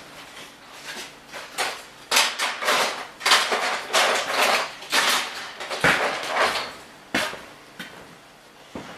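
Small hard parts clattering and rattling as someone rummages through spare parts for a replacement microwave door micro switch, a string of irregular clatters that is busiest in the middle.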